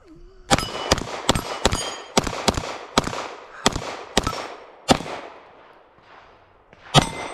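A string of about a dozen gunshots at steel plate targets, several hits followed by a high metallic ring from the struck plates. The shots come quickly for about four and a half seconds, then after a pause one last shot near the end.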